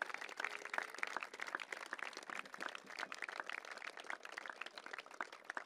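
Audience applauding: a crowd of many hands clapping irregularly.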